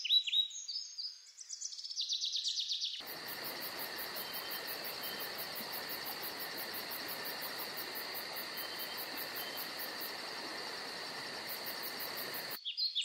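Birds chirping for the first few seconds, then a steady chorus of crickets over an even hiss, which cuts off shortly before the end.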